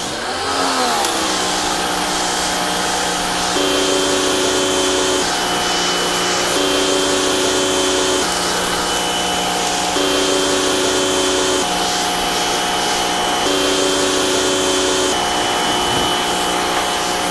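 Rock & Rocker 1800-watt electric pressure washers running and spraying through a 40-degree tip: a steady hiss with a motor-and-pump hum whose set of tones changes every second or two, as the sound alternates between a new unit and a five-day-old one. The worn unit has a high-pitched whine that the owners take as a sign its pump, or maybe its motor, is going. In the first second the pitch wavers up and down.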